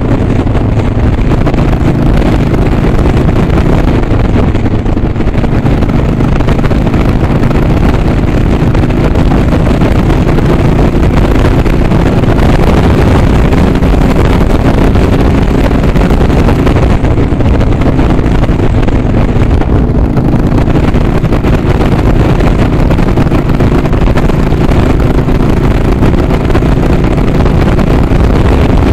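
Harley-Davidson Sportster's V-twin engine running steadily under way, heard from the handlebars, with wind rushing over the microphone.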